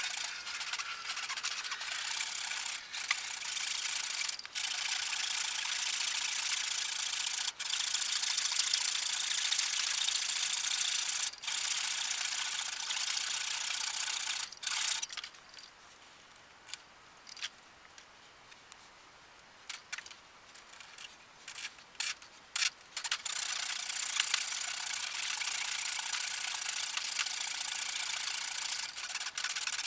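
Abrasive sanding, a steady rubbing hiss. It stops about halfway through, leaving a few light clicks and knocks, then starts again some 8 seconds later.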